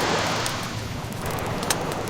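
Ocean waves washing in a steady wash, with a wood fire crackling over them in scattered sharp pops, one louder pop near the end.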